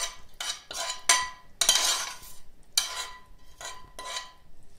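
A metal spoon scraping and knocking against a non-stick frying pan as fried vegetables are scraped out of it: about eight quick scrapes, a few with a short metallic ring.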